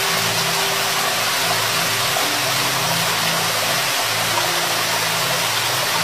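Waterfall's steady rushing hiss, even and unbroken, with faint low sustained tones underneath that shift pitch every couple of seconds.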